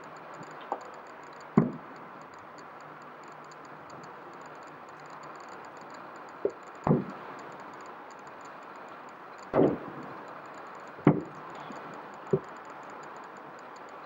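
Aerial fireworks shells bursting: about seven separate bangs at uneven intervals, each with a short echoing tail, over a steady background hiss.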